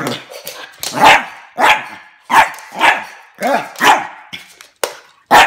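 A puppy barking in a quick run of short, high, yappy barks, about one every half second, at a lighter on the floor.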